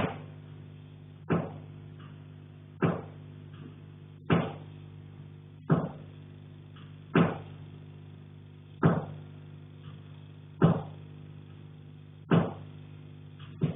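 Repeated heavy knocks coming through the ceiling from the attic, about one every second and a half, each ringing out briefly. A steady low hum runs underneath.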